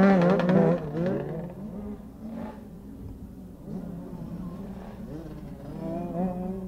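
Small 60cc two-stroke motocross bike engines revving up and down. Loudest in the first second, then a thinner, more distant buzz that keeps rising and falling in pitch.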